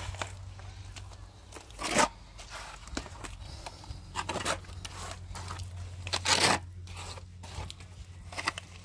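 Hand trowel scraping and pressing wet plaster onto a rough concrete-block wall, in irregular strokes with the loudest about six seconds in, over a low steady hum.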